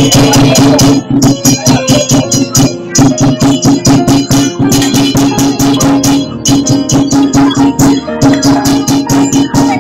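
Loud Taiwanese temple-procession percussion music: rapid cymbal and drum strikes, several a second, over a steady held note.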